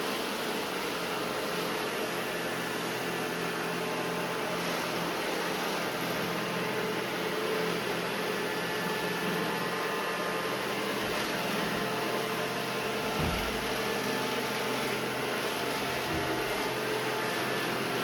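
Robot vacuum cleaners running, a steady motor hum and brush whir, with a few brief low bumps about 11, 13 and 16 seconds in.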